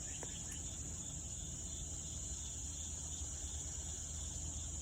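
Steady high-pitched chorus of insects trilling without a break, over a low, even hum.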